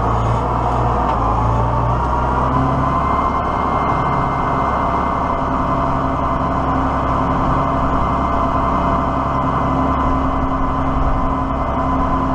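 Diesel tractor engine running steadily, with a faint steady whine above the engine note.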